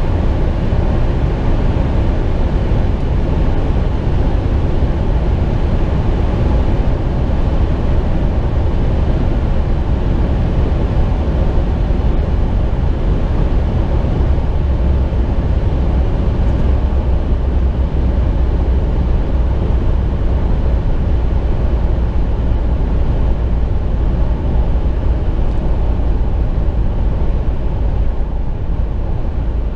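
In-cabin noise of a 2006 Ford Crown Victoria Police Interceptor at highway speed: its 4.6-litre V8 and wind and tyre roar make a steady low rumble. The car is slowing from about 125 to 80 mph with engine revs falling from about 4,000 to 2,000 rpm, and the noise eases slightly near the end.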